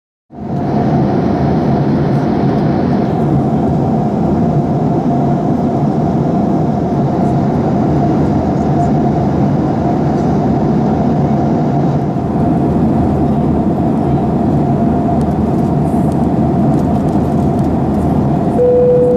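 Steady cabin roar inside a Boeing 737-800 in flight during its descent, from the CFM56-7B engines and airflow, with a constant hum-like tone running through it. Near the end a short single tone sounds.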